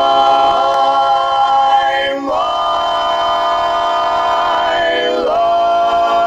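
Male barbershop quartet singing a cappella: long held close-harmony chords that change about two seconds in and again about five seconds in.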